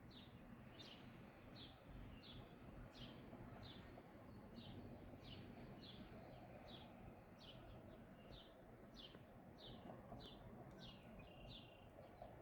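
A bird calling with short, slightly falling chirps repeated steadily, a little under two a second, over faint outdoor background noise.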